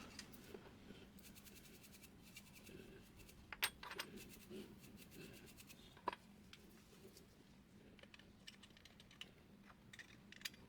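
Faint, scattered clicks and light clinks of small parts being handled, with a sharper clink about three and a half seconds in and another about six seconds in.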